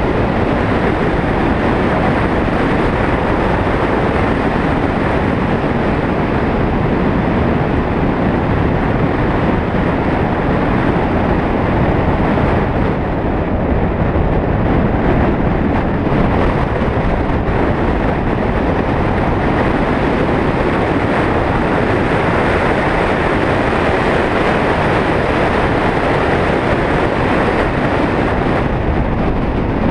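Steady rumble of a vehicle driving on a road, tyre and wind noise heavy on the microphone, with no clear engine note.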